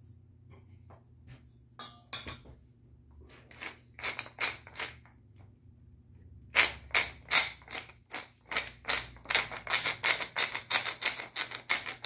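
Tall wooden pepper mill grinding pepper: a rhythmic run of crunching clicks with each twist, starting a few seconds in and getting louder and steadier in the second half at about four crunches a second.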